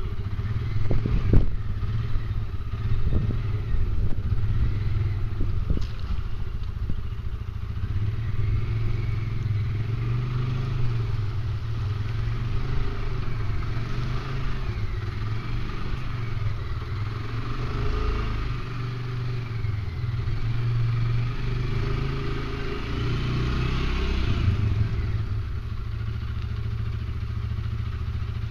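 ATV engine running under load as the quad climbs a steep slickrock ledge, its pitch rising and falling with the throttle. A few knocks sound in the first few seconds.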